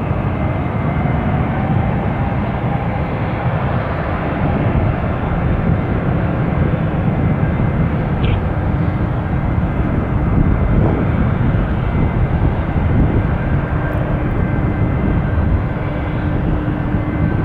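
Large cargo jet's turbofan engines running steadily: a dense low rumble with a faint steady whine that grows stronger in the second half.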